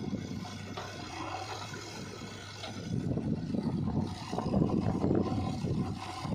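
Diesel engine of heavy earthmoving machinery running, with a rough low rumble that grows louder about halfway through as the engine works harder.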